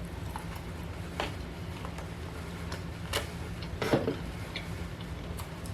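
Close-miked eating of a lamb chop: a few sharp wet mouth clicks and smacks, with a short hummed sound near the end, over a steady low hum.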